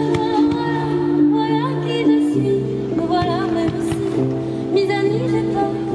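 Music with a singing voice carrying a melody over held chords.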